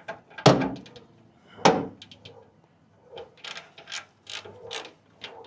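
Two sharp metallic knocks, then a ratchet-head torque wrench clicking in short strokes as it turns a brake bolt.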